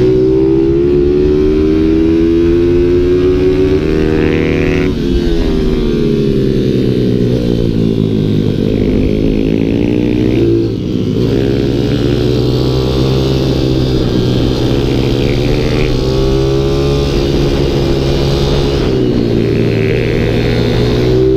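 Pit bike engine heard from onboard at speed, its pitch climbing and falling as the throttle is worked, with a sharp drop about five seconds in and a short dip near the middle. Wind noise rushes over the microphone throughout.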